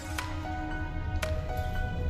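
Background music: a slow melody of ringing notes over a low bass, with new notes struck twice.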